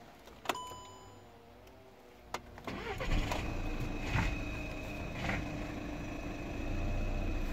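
Skoda Octavia 1.6 TDI (CAYC) four-cylinder diesel engine, heard from inside the cabin, cranking and catching about three seconds in on a cold start, then settling into a steady idle. Before it come a click with a short ringing tone and a second click.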